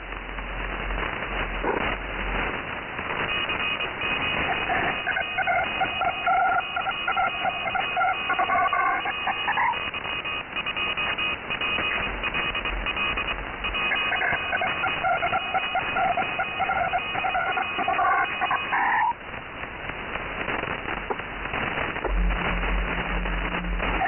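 Shortwave radio static heard in lower sideband on 6919 kHz, carrying an unidentified Brazilian "peskie" station that sends a waterfall image. Its high, shifting tones paint the letters "D1" on a spectrum display. The image is sent twice, from about three seconds in and again from about fourteen seconds in.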